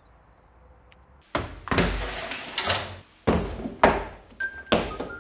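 About a second of near quiet, then a run of loud knocks and thuds, each trailing off into a rustling noise.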